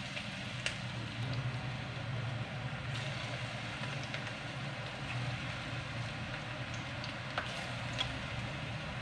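Lauki (bottle gourd) and besan kofta balls deep-frying in hot oil in a kadai: a steady sizzle with a few small pops, over a low steady hum.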